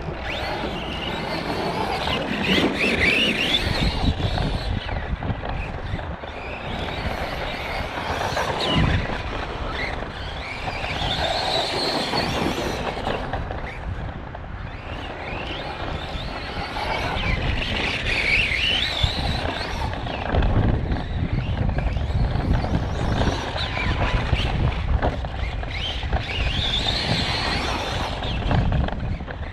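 Arrma Kraton 4S electric RC truck running laps, its motor and drivetrain whining, swelling and fading about every eight seconds. The uploader suspects a failing bearing or gear somewhere in the drivetrain.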